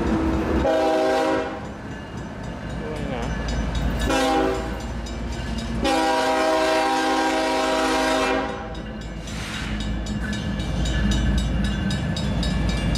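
Union Pacific diesel locomotive sounding its multi-note air horn at a grade crossing: a short blast about half a second in, another brief one about four seconds in, then a long blast of two and a half seconds, all over the low rumble of the engine. After the horn, a fast, even clatter of clicks.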